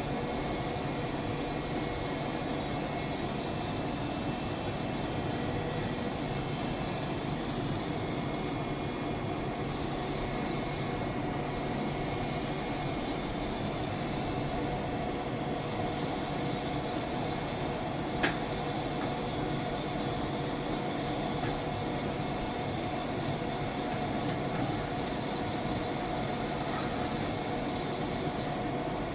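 Steady machine hum at an even level, with several held tones, from a CNC vertical machining center running, and one sharp click about 18 seconds in.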